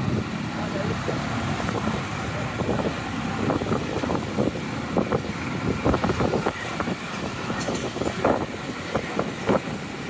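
Busy street traffic of motorcycles and cars running close around, heard from inside a car, with many short sharp knocks scattered through, more of them from about the middle on.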